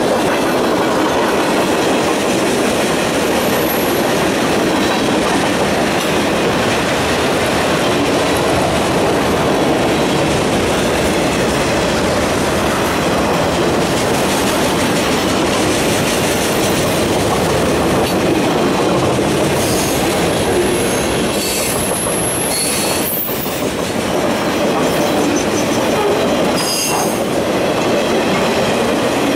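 Freight train cars rolling past: a steady rumble and rattle of steel wheels on rail, with a few brief high wheel squeals and several sharp clanks in the last third.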